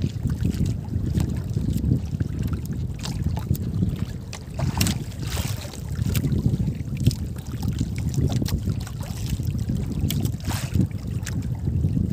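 Wind buffeting the microphone over water lapping against a small outrigger boat's hull, a steady fluctuating rumble, with a few short clicks scattered through it.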